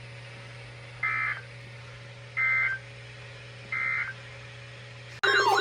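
Three short bursts of Emergency Alert System digital data tones, the End of Message code that closes a warning, each a brief shrill warble about a second and a half apart, over a faint steady hum. Near the end a loud siren-like tone starts abruptly, wavering up and down.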